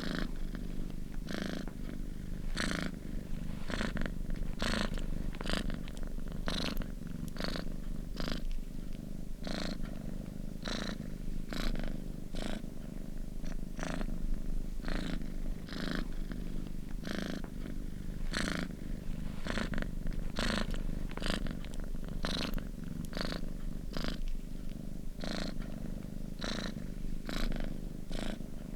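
Domestic cat purring steadily and close up, its low rumble broken by a regular breathy rasp a little more than once a second as it breathes in and out.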